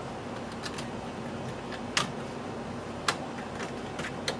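Sharp clicks and knocks of 3D-printed plastic case parts being handled and pressed into place, two louder ones about two and three seconds in and a few fainter ticks, over a steady low hum.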